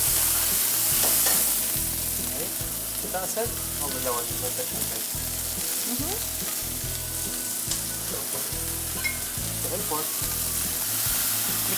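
Fresh cranberries sizzling in a hot pan, a steady frying hiss.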